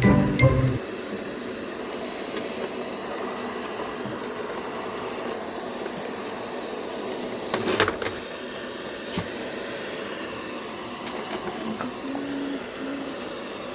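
Robot vacuum running steadily, with a few sharp clicks or knocks, the loudest about eight seconds in.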